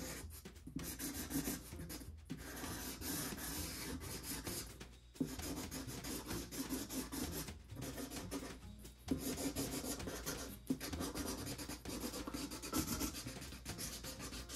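Black Sharpie marker rubbing and scratching across a cardboard box lid in drawing strokes. The strokes run for a few seconds at a time, broken by short pauses.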